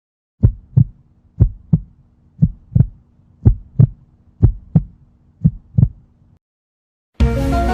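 Heartbeat sound effect: six steady lub-dub double thumps, about one a second, then it stops. Music starts just before the end.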